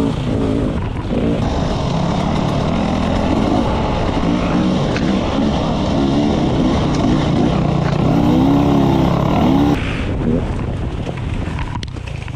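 Dirt bike engine revving up and down as the throttle is worked on single track. A higher rev about eight seconds in drops off sharply near ten seconds, and the engine runs softer after that.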